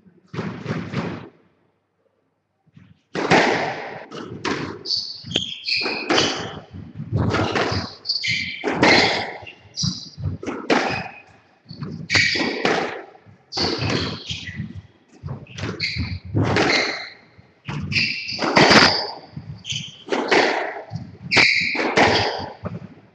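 Squash rally: the ball being struck and hitting the court walls about once a second, with shoes squeaking on the wooden court floor between shots. After a brief pause it starts about three seconds in and runs on busily.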